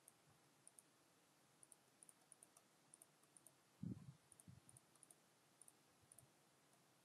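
Faint, repeated computer mouse clicks, each a quick pair of ticks as the button is pressed and released. A soft low thump about four seconds in is the loudest sound.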